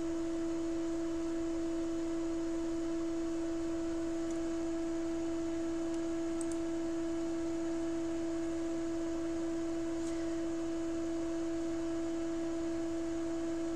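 Steady electronic hum: one constant mid-pitched tone with a fainter tone an octave above, unchanging.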